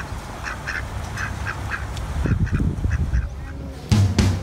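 Ducks quacking in a rapid series of short calls that stop about halfway through, followed by a low rumble. Music with a drum beat cuts in near the end.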